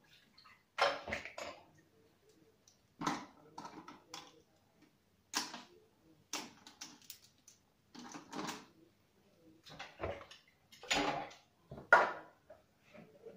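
Hard plastic baby bottles, caps and teats clicking and clattering as they are handled and set into an electric steam sterilizer's rack: a series of short knocks with gaps between them, the sharpest near the end.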